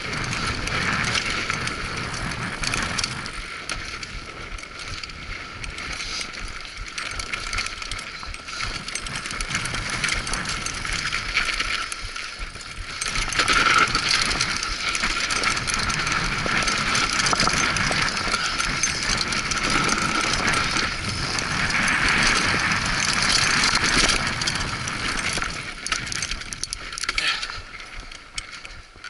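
Mountain bike rolling fast down a dry dirt and loose-gravel trail: steady tyre noise over the ground, with the chain and frame rattling and clattering over bumps. It is loudest through the middle stretch and quieter near the end.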